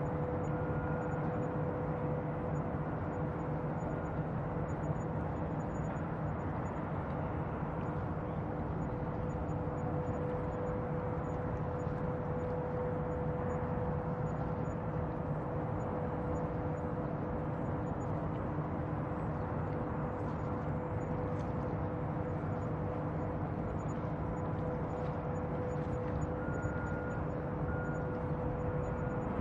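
Steady bayside ambience: a continuous low drone with a constant hum running through it, and no distinct events.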